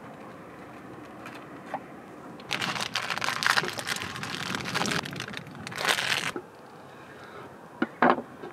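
Thin plastic food wrapper crinkling and rustling for about four seconds as it is pulled off chikuwa fish-cake tubes, stopping abruptly. Near the end, two short sharp knocks on a wooden cutting board.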